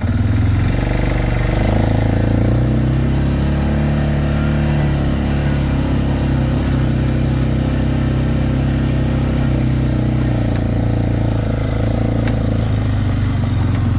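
Four-wheeler (ATV) engine pulling away, picking up speed over the first couple of seconds, then running steadily under way.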